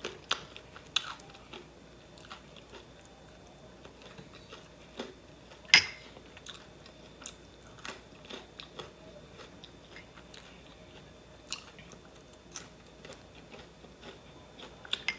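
Close-up chewing and biting of sauced waffle fries, with small scattered mouth clicks and smacks. One louder click comes about six seconds in.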